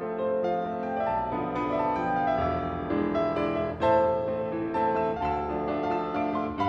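Piano music: a continuous run of melodic notes with chords.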